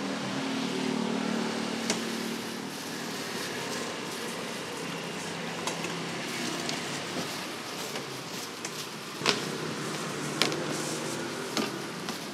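Steady street background noise with a low engine hum in the first few seconds, and scattered sharp clicks and knocks, the loudest about nine seconds in.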